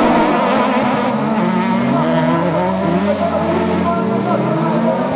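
Engines of several autocross buggies racing on a dirt track, their pitch rising and falling as they run through the corners.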